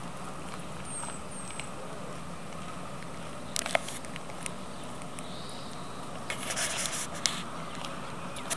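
Footsteps on a gravel path, with scattered sharp clicks about three and a half seconds in and a stretch of gritty crunching near the end, over a steady outdoor hiss. Two short, faint, high chirps sound about a second in.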